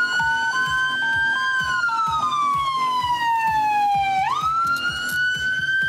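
Police car siren on a slow wail: the pitch climbs a little, falls slowly, then sweeps quickly back up about four seconds in. For the first two seconds a second tone steps back and forth between two close pitches beneath it.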